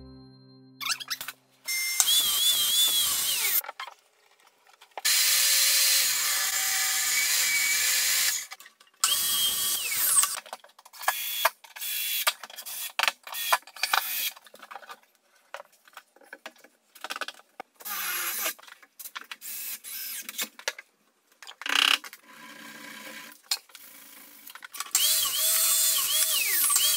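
A string of short, abruptly cut bursts of cordless drill-driver work on timber: the motor whirs in bursts, its whine rising and falling with the trigger, with clicks and knocks in between.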